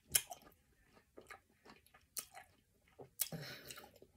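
Close-miked mouth chewing of juicy watermelon: scattered wet smacks and crunches. There is a louder one just after the start and a longer wet stretch a little after three seconds in.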